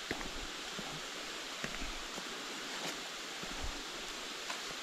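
Steady rush of flowing water, with a hiker's soft, irregular footsteps and small crunches on the trail.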